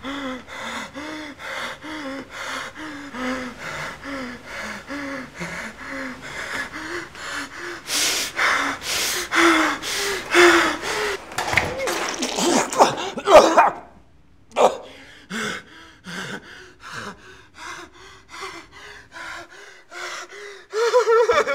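A man panting and gasping in distress: rapid, regular, partly voiced breaths. They grow louder and more strained about eight seconds in, break off briefly around fourteen seconds, then go on more faintly.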